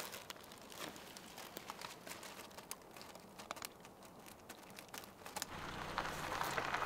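Faint scattered clicks and crinkles, then a Honda Fit hatchback pulls in on gravel, its engine and tyre noise swelling steadily louder over the last second or so.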